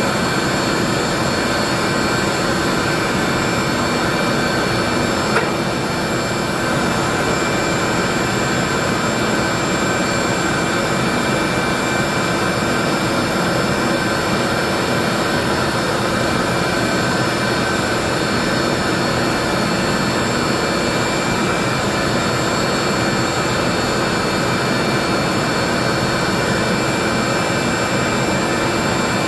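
Router motor on a router table running steadily at high speed, a constant whine with no change in pitch. One small click about five seconds in.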